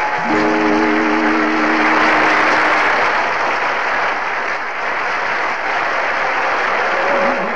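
Audience applauding steadily, with a held musical chord under the clapping for the first few seconds.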